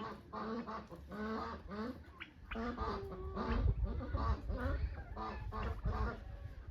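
A group of domestic waterfowl calling over one another in short, quick repeated calls. A low rumble runs underneath from about halfway through.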